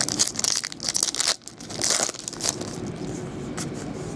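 Silver foil wrapper of a 2012 Bowman Platinum baseball card pack crinkling and tearing as it is pulled open by hand, in several crackly bursts during the first two seconds, then softer rustling.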